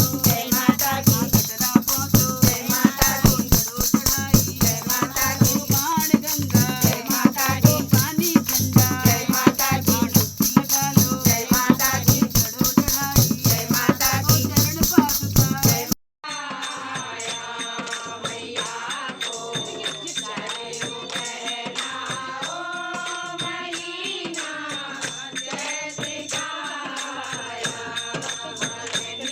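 Hindi devotional bhajan music: singing over a fast, busy beat of rattling, shaker-like percussion. About halfway through it cuts off abruptly and gives way to a softer passage of sustained singing with little percussion.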